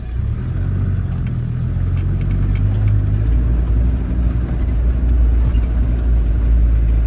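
Tour jeep's engine pulling away and running under load, heard from inside the vehicle as a loud low rumble; its pitch drops about three seconds in.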